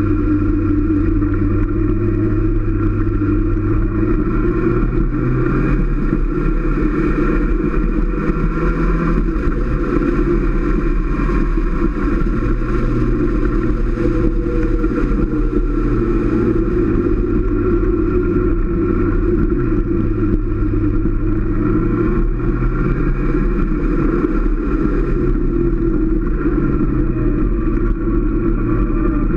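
Motorcycle engine running at road speed, its pitch rising and falling gently as the throttle changes, over steady low wind and road rumble.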